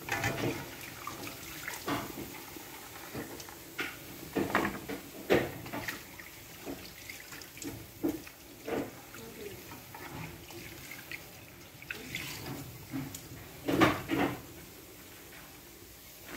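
Chin chin dough pieces deep-frying in hot oil: a steady sizzle and bubbling, with irregular short knocks and clatters throughout.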